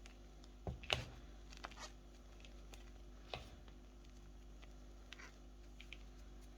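Sports chalk being handled or crumbled: a few short crackles and taps, the loudest cluster about a second in, then sparser fainter ones, over a low steady hum.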